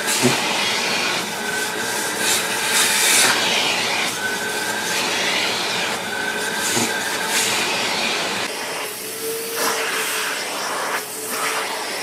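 Vacuum cleaner running with its nozzle drawn over a cat's fur, the suction hiss swelling and easing every second or two. About eight and a half seconds in, it gives way to another vacuum with a steadier, thinner hum.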